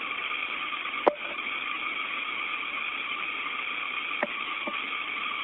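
Steady hiss of the space-to-ground radio channel between transmissions, with a sharp click about a second in and a fainter click a little past four seconds.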